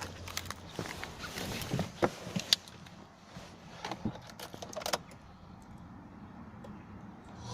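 Keys jangling and scattered sharp clicks and knocks, most of them in the first five seconds, then quieter; handling inside a car with the engine not yet running.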